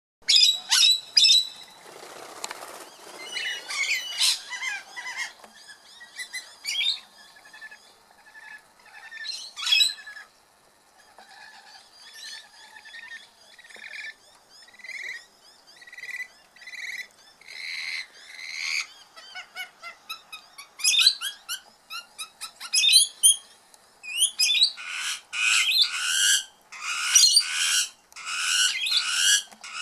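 Several birds calling and chirping: a run of evenly spaced notes, about one a second, that grow louder in the middle, then loud calls repeated about once a second near the end.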